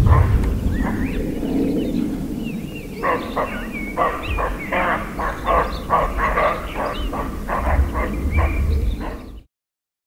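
Roe deer giving alarm barks at a person they have heard: a rapid run of short barks, about two to three a second, starting about three seconds in. Faint bird chirps sound alongside, and everything cuts off suddenly near the end.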